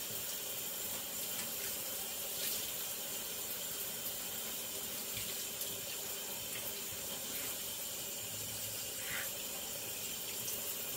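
Shower running: a steady spray of water falling from the showerhead onto a person and the shower floor.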